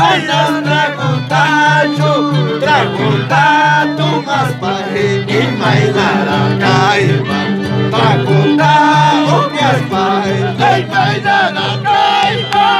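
Violin and Andean harp playing a lively Santiago tune together: the bowed violin carries the melody over a steady rhythm of plucked harp bass notes.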